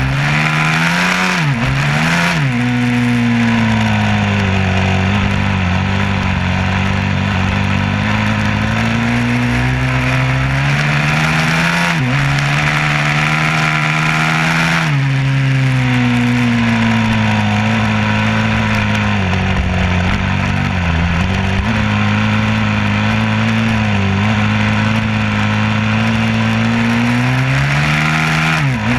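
A vehicle engine running under way. Its pitch holds steady for long stretches, then climbs for a few seconds about halfway through and drops sharply. There are also quick dips in pitch about two seconds in and near the end.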